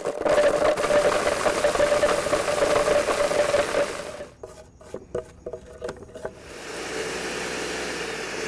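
Countertop blender running at full speed, grinding allspice berries, garlic, habanero peppers and green onion into a jerk seasoning paste. About four seconds in it breaks into a few short stops and starts, then runs on steadier and somewhat quieter as the mix turns smooth.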